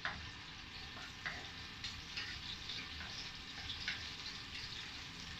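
Sliced carrots and onions sizzling in oil in a stainless-steel wok as a wooden spatula stirs them. Short scrapes and taps of the spatula against the pan come through the sizzle about once a second.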